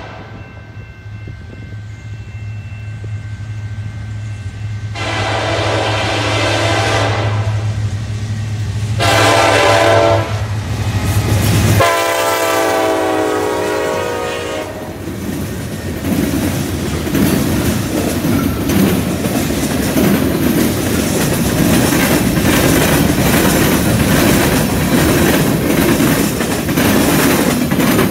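Diesel freight locomotives approach with a steady low engine drone and sound the horn in three blasts, the last the longest. As the engines pass, the drone drops away and the freight cars roll by with a continuous clickety-clack of steel wheels on the rails.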